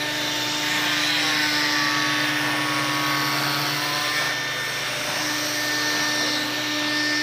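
Handheld electric disc sander running steadily against a wooden door panel: a continuous motor whine over a rasp of sanding. Its pitch wavers about a second or two in as the disc is pressed into the wood.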